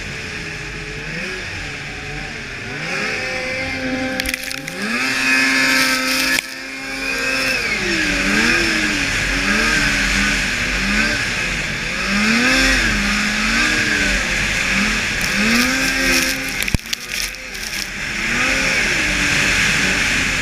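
A Blade Striker 600 race snowmobile's engine at full race pace, its revs rising and falling again and again as the throttle is worked through the course, over a steady rush of wind and track noise.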